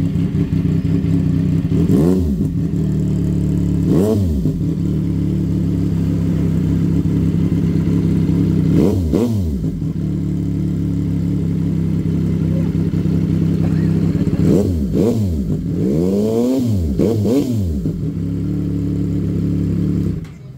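CFMOTO 675 SR-R inline-three engine idling through an aftermarket slip-on exhaust, blipped in short revs: a few seconds apart at first, then three quick blips in a row about three-quarters of the way through.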